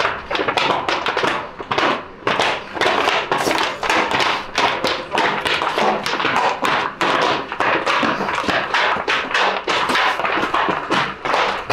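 Footsteps of several players walking in football boots on a hard path: a dense, irregular run of taps and clacks.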